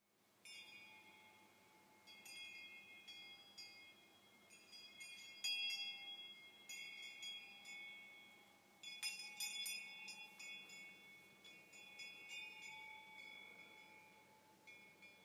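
Soft metal chimes struck at irregular intervals, their bright high tones ringing on and overlapping, with the loudest strikes about five and a half and nine seconds in.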